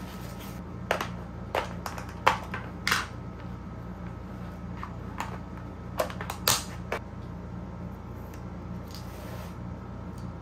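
Small clear plastic box being handled on a desk: a handful of sharp plastic clicks and taps as its lid comes off and pieces are set down, in two clusters about a second in and about six seconds in, over a steady low hum.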